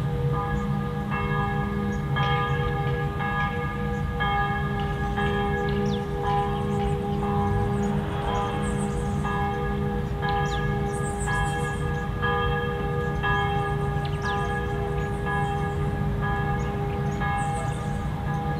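Church bells ringing, struck about once a second in a steady repeating pattern, over a low steady hum.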